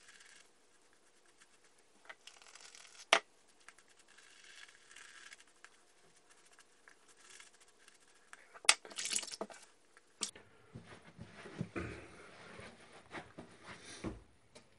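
Badger shaving brush working up shaving cream lather in a bowl, then brushing it onto the beard and cheeks: soft, faint swishing and scratching. There is a sharp tap about three seconds in and a louder clatter of clicks around nine seconds.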